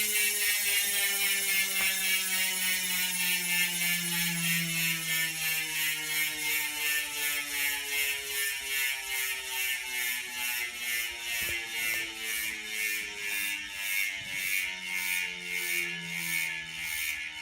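DT Swiss 350 rear hub freewheeling on its 54-tooth star ratchet: a continuous fast ratcheting buzz that slowly drops in pitch as the wheel coasts down.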